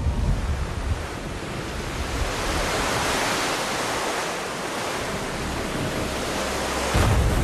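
Stormy-sea sound effect: wind and rushing, surging waves, swelling in the middle, with a heavier low surge near the end.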